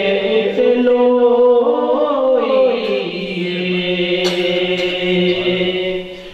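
A man singing a devotional chant solo into a microphone, holding long drawn-out notes that bend and glide down in pitch, with a short break for breath near the end.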